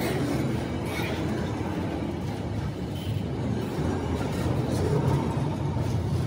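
Freight train of autorack cars rolling past at close range: a steady rumble of steel wheels on rail.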